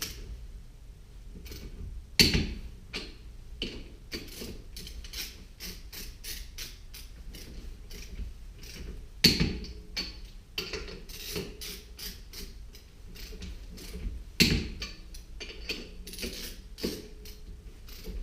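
Ratcheting torque wrench with a 13/16 socket tightening wheel-spacer nuts to 120 N·m in a star pattern: runs of quick ratchet clicks, with a much louder sharp click three times, roughly five to seven seconds apart.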